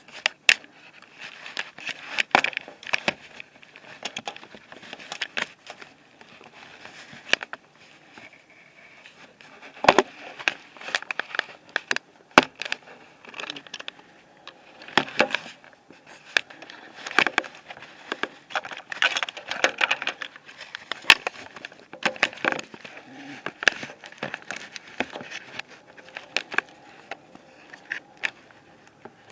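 Close handling noise: irregular rustling of clothing and sharp clicks and scrapes from the camera being gripped and moved right at the microphone.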